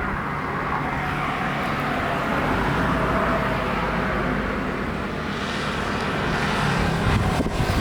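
Jet airliner engines running as a steady rumble, with a hiss that swells about five seconds in as the aircraft draws nearer.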